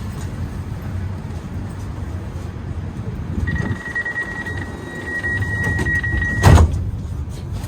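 Alstom Citadis 305 tram's door-closing warning: a steady high beep lasting about three seconds, then a loud thud as the sliding passenger doors shut, over a low steady hum of the standing tram.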